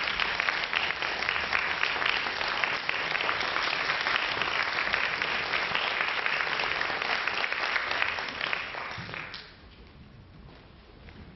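Audience applauding, a dense steady patter of many hands clapping that dies away about nine seconds in.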